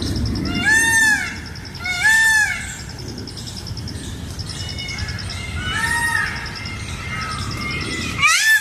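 Peacock calling: four loud, arched, honking calls, two close together about a second apart near the start, another about six seconds in and a last one near the end, over a steady high pulsing buzz.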